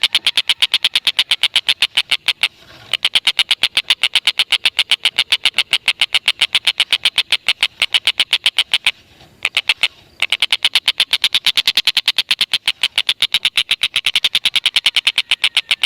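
Tengkek buto (stork-billed kingfisher) giving its long, rapid chattering 'ngekek' call: a fast, even string of sharp, high notes, about ten a second, broken by two short pauses.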